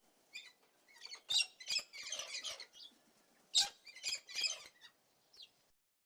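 A small animal's high-pitched chirps and squeaks: a string of short calls in irregular clusters, with a denser scratchy flurry about two seconds in.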